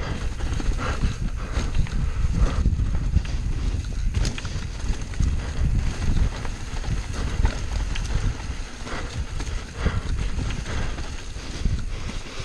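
Mountain bike descending a rough dirt singletrack: a continuous low rumble of tyres and wind, with frequent knocks and rattles as the bike jolts over roots and bumps.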